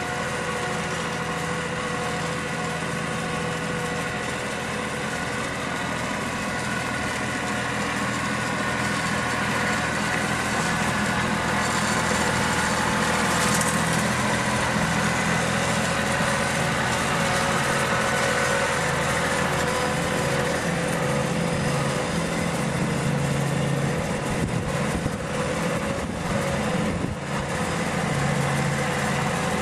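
Tractor engine running steadily, powering a three-point-hitch hydraulic well-drilling rig; it grows a little louder about ten seconds in.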